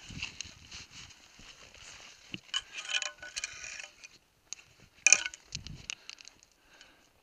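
Ice axe and mountaineering boots scraping and knocking on rock during a downclimb, with scattered clicks and rustles. One loud, sharp click about five seconds in.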